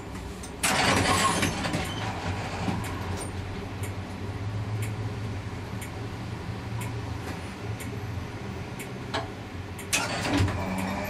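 Comeng A-class tram heard from the driver's cab: a loud burst of hissing noise about a second long shortly after the start, then a steady low hum with scattered clicks, and another brief noisy burst near the end.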